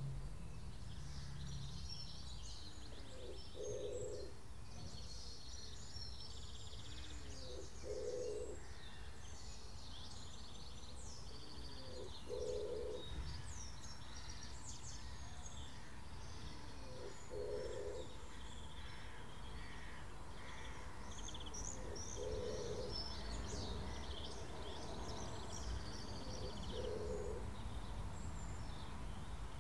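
Garden birdsong: small birds chirping and twittering throughout, with a low cooing call repeated about every four and a half seconds, over a steady low background rumble.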